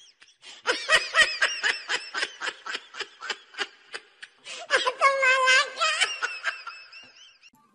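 High-pitched laughter in quick rhythmic bursts, about four or five a second, with a drawn-out wavering note about five seconds in before it trails off.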